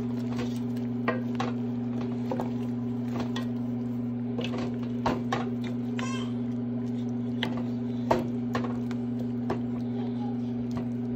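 Wooden spoon knocking and scraping now and then against a stainless steel pot of chicken stew as it is stirred, over a steady low hum.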